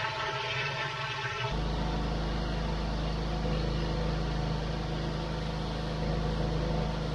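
Pressure washer engine running steadily with the spray hiss of a 20-inch Whirlaway rotary flat surface cleaner working over paving. About a second and a half in the sound changes abruptly to a deeper, stronger steady hum, and it cuts off sharply at the end.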